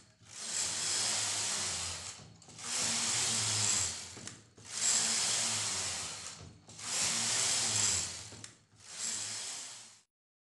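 Carriage of a flatbed home knitting machine pushed across the metal needle bed, knitting rows: five passes of about two seconds each, with a short pause at each end of the bed. The sound cuts off suddenly near the end.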